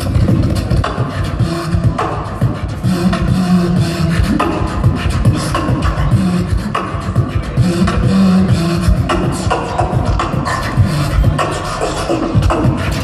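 Beatboxer performing a steady beat with the mouth: rapid vocal kick-drum thumps and snare and hi-hat clicks, with short held vocal bass notes now and then.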